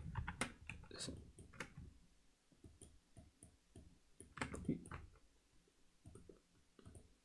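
Faint computer keyboard and mouse clicks: a few sharp clicks scattered through, the strongest pair about four and a half seconds in, with lighter ticks between.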